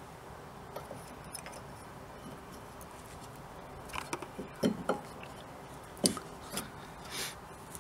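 A few light clicks and knocks of brake pads and caliper parts being handled and fitted during rear brake caliper reassembly, bunched about four to five seconds in and again about six seconds in, with a brief rub near the end.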